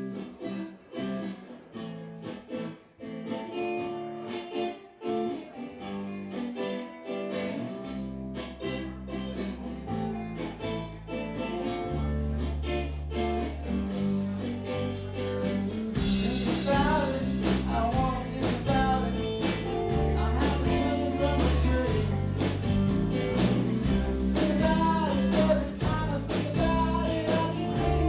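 Live blues-rock band playing the opening of a song: a guitar plays alone at first, bass guitar comes in about eight seconds in, and the drums join around halfway as the full band builds and gets louder.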